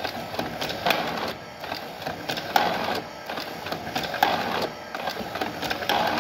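Homemade motor-driven cigarette injector machine working through its filling cycle, rattling continuously, with a louder mechanical stroke about every 1.7 seconds.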